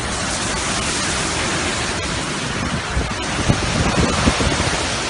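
Hurricane-force wind driving heavy rain: a steady, dense hiss of rain and wind.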